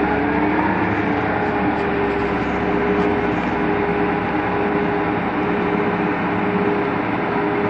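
Tractor diesel engine running steadily at a constant speed, a continuous drone with a held hum.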